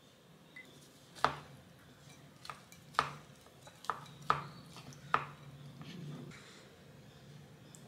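A glass set down on a table, then a wooden spoon knocking against a ceramic bowl as it mixes rice, about six sharp clacks over four seconds.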